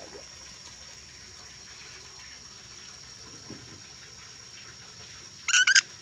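An ornate lorikeet gives a quick burst of about three shrill screeches near the end. Under it runs a steady high-pitched drone and hiss.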